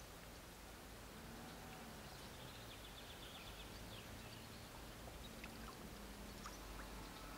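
Faint ambience of a calm river: a low steady hiss and rumble of water, with a few faint high ticks and clicks scattered through it.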